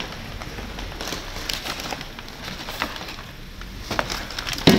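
Brown packing paper rustling and crinkling in a cardboard box as hands dig through it, with scattered small clicks and one sharp knock near the end.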